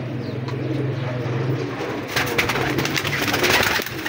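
Domestic pigeons cooing in a loft. About two seconds in, a dense scratchy rustling joins the cooing.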